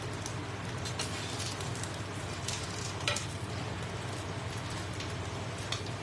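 Bánh xèo batter frying in a small oiled pan, a steady sizzling hiss with scattered sharp crackles, the loudest about three seconds in, over a low steady hum.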